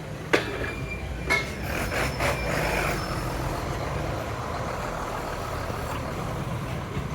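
Low steady rumble of a motor vehicle's engine running close by, with a sharp knock just after the start and a brief clatter a little over a second in.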